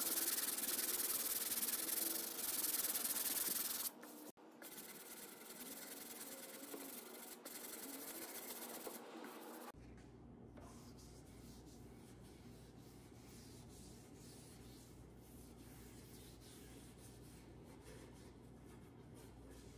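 Sandpaper rubbing over bare wood: a loud, even hiss for the first four seconds, then quieter sanding strokes. About ten seconds in it gives way to much softer rubbing of a rag wiping stain onto a wooden desk leg, over a low steady hum.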